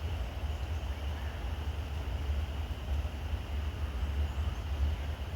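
Low, steady rumble of a diesel-hauled coal train drawing in to stop at a red signal, with a faint hiss above it.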